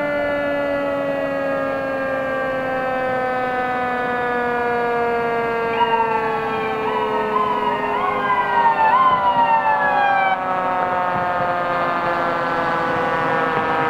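Fire engine sirens: one siren wails and winds slowly down in pitch throughout, while a second siren cycles in quick rising-and-falling sweeps for about four seconds in the middle and then cuts off suddenly.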